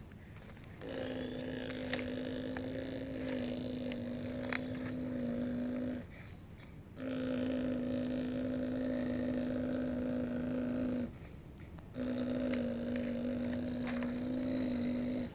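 Small electric motor of a radio-controlled construction model running with a steady buzzing hum, stopping and starting again twice, in three runs of about four to five seconds.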